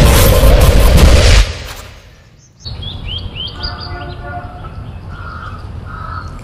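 Loud background music cuts out about a second and a half in. Then birds chirp repeatedly in a short series of quick calls over a low, steady outdoor rumble.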